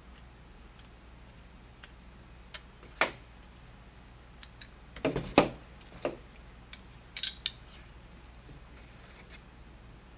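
Camera mounting plates and a hex screw being handled and set down on a tabletop: scattered sharp clicks and light knocks, loudest in a quick cluster about five seconds in.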